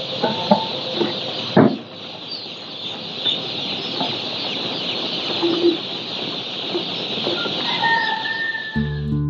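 Dense chorus of many day-old broiler chicks peeping in cardboard chick boxes, with one sharp knock from the boxes being handled about a second and a half in. Guitar music comes in near the end.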